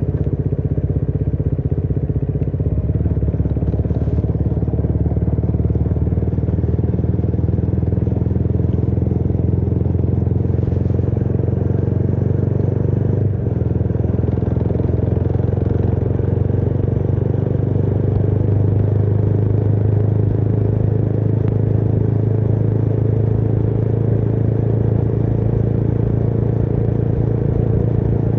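Motorcycle engine running steadily under way, a low engine note with a brief dip and a change in pitch about halfway through.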